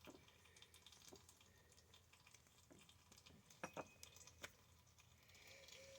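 Near silence, with a few faint short clicks or taps, two close together about three and a half seconds in and one more shortly after.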